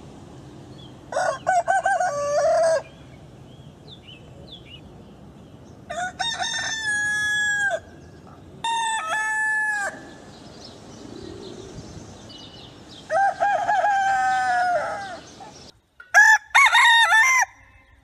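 Rooster crowing: five full cock-a-doodle-doos spread through, each a loud pitched call of one to two seconds, with a low steady background hiss between them.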